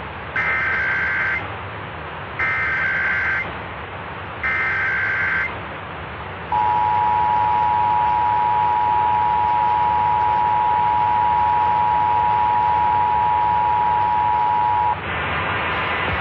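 Emergency Alert System test tones received over AM radio. First come three one-second bursts of the SAME digital header, a harsh two-pitch data screech, about two seconds apart. Then the steady two-tone EAS attention signal holds for about eight seconds and cuts off near the end, over a constant hiss.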